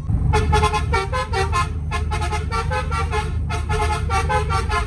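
Basuri telolet horn playing a fast tune of short staccato notes in three or four runs with brief breaks between them. Underneath is the low steady drone of a vehicle running.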